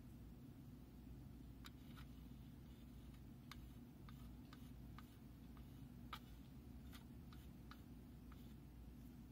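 Faint, irregular clicks of a wooden toothpick tapping and scraping against a ceramic spot-plate well while stirring a simulated blood sample with antiserum, over a low steady room hum.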